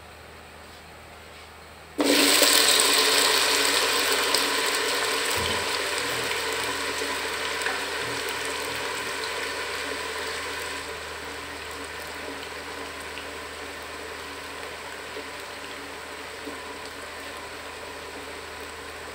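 Sliced taro root (arbi) hitting hot oil in a pot: a sudden loud sizzle about two seconds in that slowly dies down to a steady, quieter sizzle.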